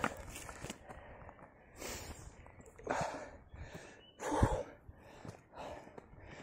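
Heavy breathing of someone out of breath from climbing uphill, a hard breath about every second, the loudest a little after four seconds in, with footsteps on a gravel path.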